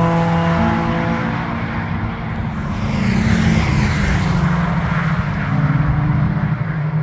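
Car engines running under power as cars pass on a race track and pull away, with tyre and wind noise. The sound fades a little about two seconds in, then a second car gets louder about three seconds in.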